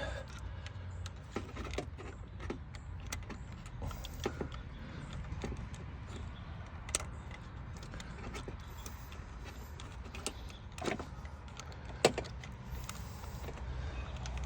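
Scattered light metallic clicks and taps of a tool working in a spark plug well to pull out a loosened spark plug, with one sharper click about twelve seconds in, over a low steady hum.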